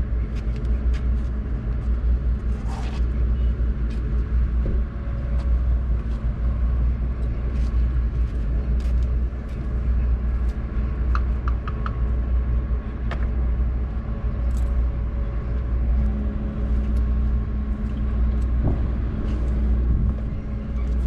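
Steady low rumble of an engine running at an even idle, with a few light clicks and taps over it.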